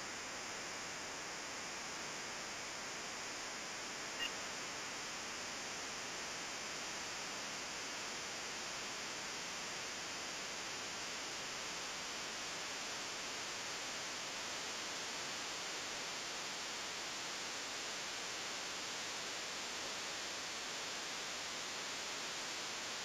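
A steady, even hiss with no tune or engine in it, and one faint click about four seconds in.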